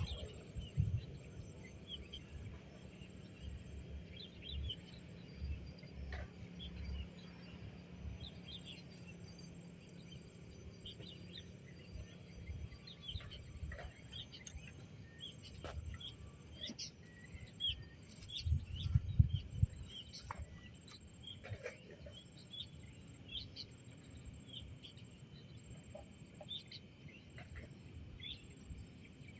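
Birds chirping in short, scattered calls over a low rumble, with a louder spell of low rumbling bumps about two-thirds of the way through.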